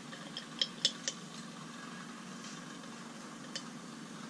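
A few light, sharp clicks and taps, four in quick succession in the first second and one more about three and a half seconds in, over a steady low hum.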